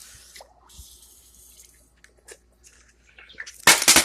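A crackling ball firework hissing for about two seconds, then a few faint clicks, and near the end a fast run of loud, sharp crackling pops as it goes off.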